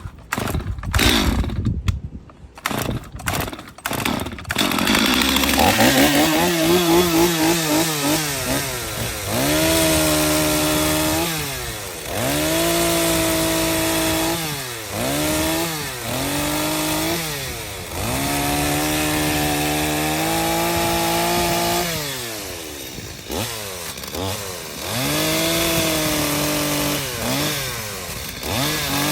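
Chainsaw cutting a groove into a wooden post. After a few seconds of sharp clattering, the saw's engine runs at high revs, its pitch dropping and recovering again and again as the chain bites into the wood and is eased off.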